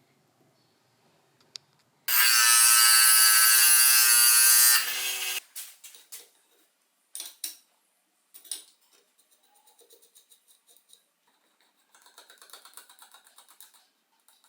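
A small electric power tool's motor runs at a steady pitch for about three seconds, winds down and stops, followed by scattered light clicks and clinks of small parts being handled.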